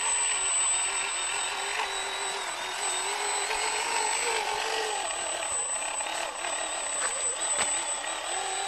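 Small electric motors and gearboxes of a homemade RC 6x6 truck whining as it drives loaded with sacks over dirt, the pitch wavering up and down with the load. A thin steady high whistle sits above it.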